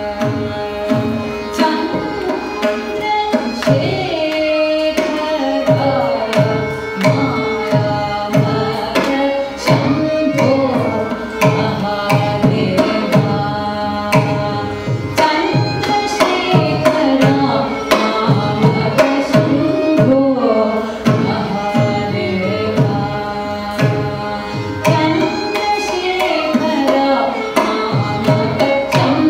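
Carnatic vocal music: a woman singing ornamented phrases that glide in pitch, accompanied by violin, a mridangam drum playing a steady run of strokes, and a tanpura drone.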